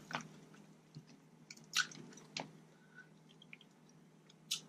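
Close-miked mouth sounds of a person chewing leftover seafood: a few sharp, wet clicks and smacks spread out between quieter chewing.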